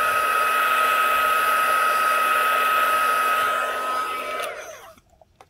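Small handheld electric stirrer whirring steadily with one constant whine as its wire whisk mixes white colorant in a plastic cup of resin. It is switched off about four seconds in and winds down to a stop.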